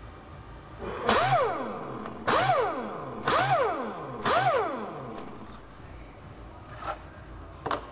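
Pneumatic impact wrench run with no load in four short trigger pulls about a second apart, its air motor whining up in pitch and winding back down after each one. Two faint clicks near the end.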